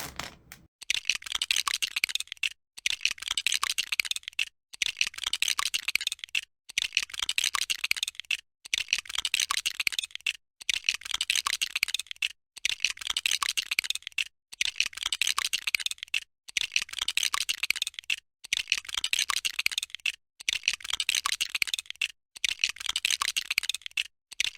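Dense, fast clicking and rattling of plastic LEGO Technic pieces being handled and snapped together, in about a dozen bursts of roughly two seconds each, with a short silent break between bursts.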